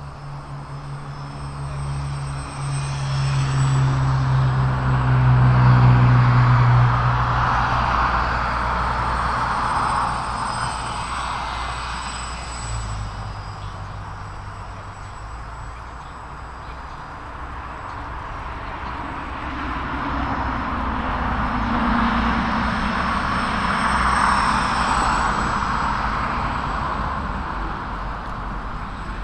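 Micro Draco RC plane's electric motor and propeller buzzing overhead, swelling and fading as the plane flies past twice.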